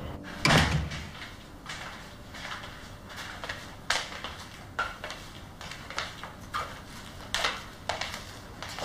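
A door thuds shut about half a second in, followed by slow footsteps on a wooden floor, one short tap every second or less.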